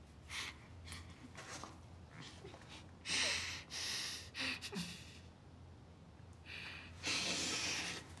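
Close-up breathing of two people kissing: a series of short, sharp breaths through the nose and mouth, heaviest about three seconds in and again near the end, over a low steady room hum.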